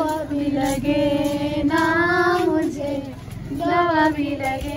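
A song: a high voice singing long, wavering held notes, phrase after phrase with short breaks between them.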